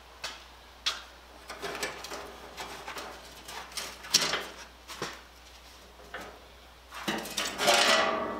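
Pitted sheet steel and steel C-clamps knocking and clattering as they are handled, with a sharp bang about four seconds in. Near the end comes a longer, louder scrape with the metal ringing.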